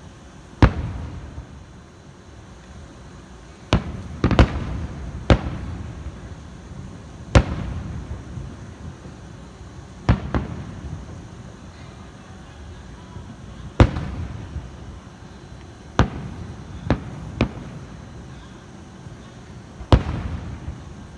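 Aerial fireworks shells bursting: about eleven sharp bangs at irregular gaps of one to four seconds, each trailing off in a short echo.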